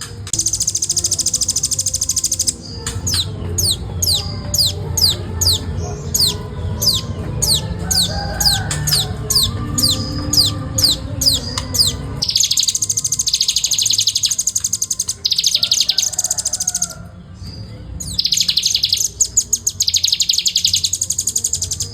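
Velvet-fronted nuthatch calling. It gives dense, rapid high trills, broken in the middle by a run of quick downward-sweeping notes, about two to three a second, then goes back to trilling.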